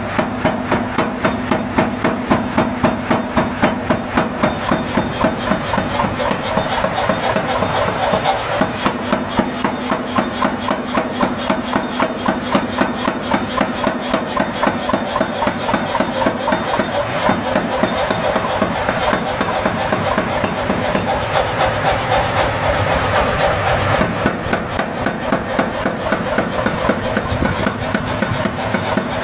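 Hammer blows on hot iron, drawing out the metal in a fast, even rhythm of about four to five strikes a second, over a steady hum.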